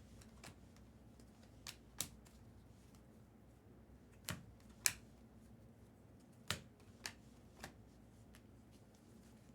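Baseball trading cards being flipped through and handled, making faint, sharp card snaps and clicks at irregular intervals, about nine in all.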